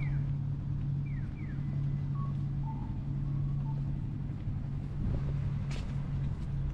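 A motor vehicle's engine running steadily close by, a low hum that holds one pitch throughout, with a few faint high chirps over it in the first few seconds.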